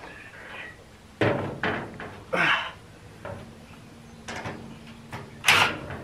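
Several short, separate knocks and clunks, a second or so apart, from wooden boards being handled and fastened.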